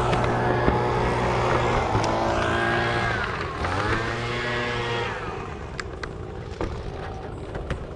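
An engine runs steadily, its pitch dipping and recovering about three and a half seconds in, as if briefly loaded, then fades away after about five seconds. A few light clicks follow near the end.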